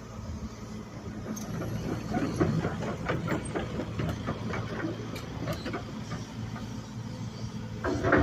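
Excavator engine running steadily, with a run of clanks and knocks as the machine works, and a louder surge right at the end.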